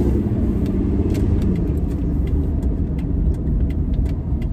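Car driving, heard from inside the cabin: a steady low engine and road rumble, with the engine's tone easing off in the first second or two and scattered light clicks throughout.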